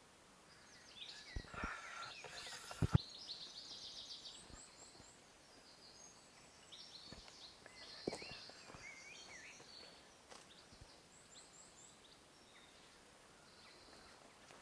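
Forest birds chirping, with short high calls in quick runs of three or four notes, over light outdoor background noise. A few sharp knocks and scuffs come near the start and about eight seconds in.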